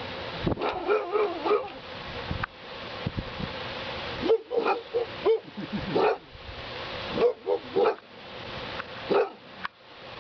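Boxer dogs barking in several short bouts of quick, sharp barks, with gaps of a second or two between bouts.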